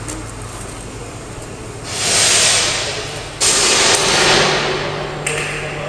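Electrical arcing on a power cable: a loud sizzling hiss that starts about two seconds in over a low hum, then jumps abruptly louder about a second and a half later.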